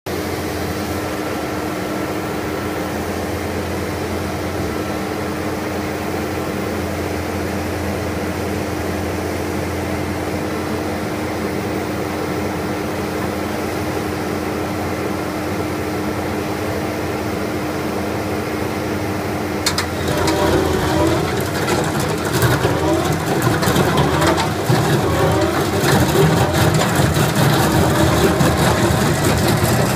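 Ditch Witch RT-115 trencher's engine running steadily. About twenty seconds in, the Hydra Wheel rock saw bites into the ground and a louder, rough grinding clatter joins the engine, growing louder over the following seconds.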